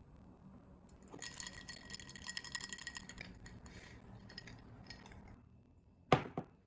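Small metal objects jingling and clinking for about two seconds, with a bright ringing tone, then a single sharp knock near the end.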